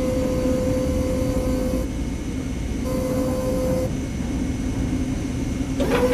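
Machinery running with a steady low hum, and a steady whine that sounds three times: for the first two seconds, again about three seconds in, and once more near the end.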